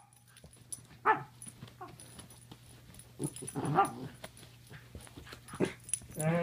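Dog whimpering and whining in several short pitched cries a second or two apart, the loudest about a second in: the eager sound of a dog straining to get to its owner.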